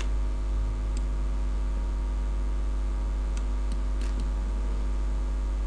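Steady electrical mains hum with a buzzy row of overtones, at a constant level. A few faint clicks, mostly past the middle.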